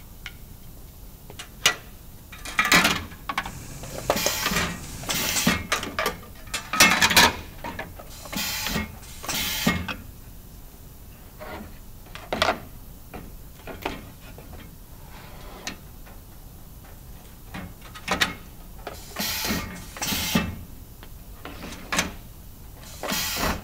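Parts of a Grass ZBox metal drawer being fitted together by hand on an assembly jig: sharp clicks, knocks and sliding or scraping of the metal drawer sides and panels, in irregular bursts with pauses between.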